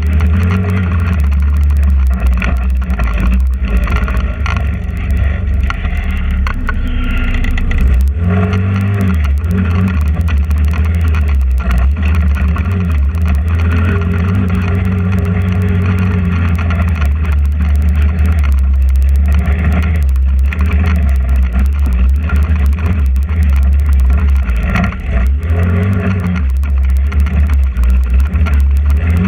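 GY6 150cc single-cylinder four-stroke engine of a TrailMaster 150 XRX go-kart running under throttle over rough dirt, heard from onboard, its pitch rising and falling with the throttle, with a few knocks from the ground.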